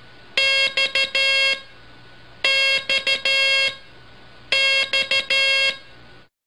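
Buzzy Morse code tone sending the same character three times, about two seconds apart. Each group is a dash, two dots and a longer dash, over a steady hiss and low hum that cuts off near the end.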